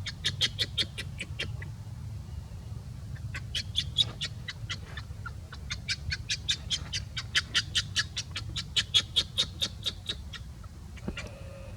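An animal giving rapid runs of short, high-pitched chirps, about five a second: a brief run at the start, then a long one from about three seconds in to near the end. A steady low rumble lies underneath.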